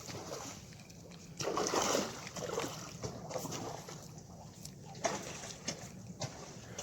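A splash in water about a second and a half in, followed by softer sloshing and a few light clicks.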